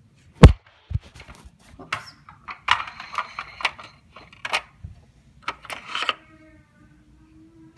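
Hard plastic toys being handled and a toy car pushed across a rug: a loud thump about half a second in, then an irregular run of clicks and clatters, giving way to a faint steady hum near the end.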